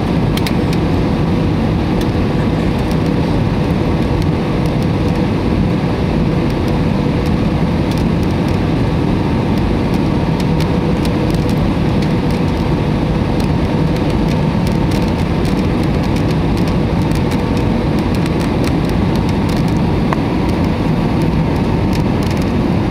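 Steady cabin noise inside an Airbus A320 on approach to landing: a loud, even rumble of engines and airflow with a faint steady hum running through it, and light scattered ticks.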